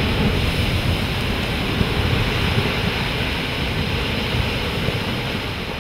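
Steady noise of wind and ocean surf around a boat, with the boat's engine running underneath.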